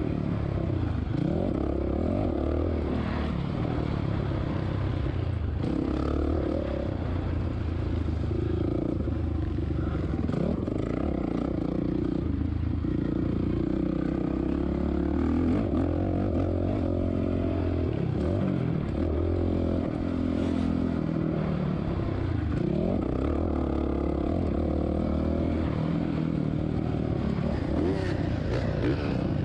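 2007 Suzuki RM-Z450's single-cylinder four-stroke engine under race load, its revs rising and falling again and again through the gears.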